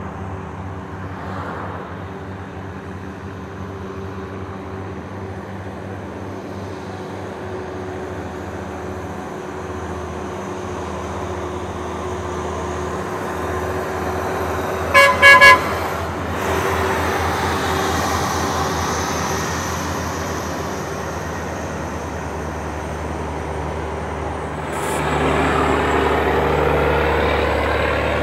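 Heavy diesel dump truck engine labouring up a steep grade under a full load, running steadily and growing louder. Two short horn toots about halfway through are the loudest sound. A short hiss comes near the end, and after it the engine is louder still.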